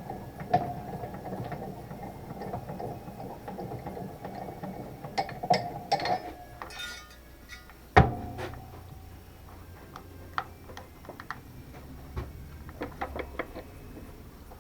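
Workshop handling noises: about six seconds of rattling and scraping with a steady tone under it, then scattered clicks and one sharp knock about eight seconds in.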